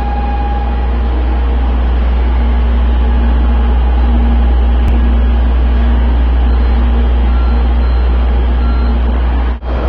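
Steady low rumble and background noise of a Shinkansen station platform, with a brief dropout near the end.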